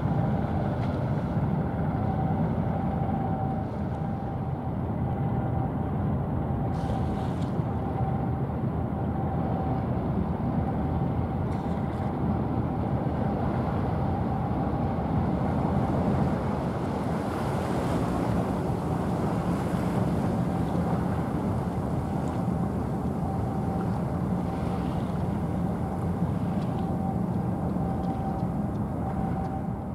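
Steady low rumble of a ship's engine mixed with water and wind noise on the microphone, with a faint high whine that comes and goes.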